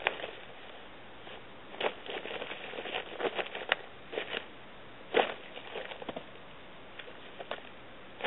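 Blue plastic tarp rustling and crinkling in irregular bursts as two cats paw at it, tug its edge and crawl underneath it, with a quieter spell a little past the middle.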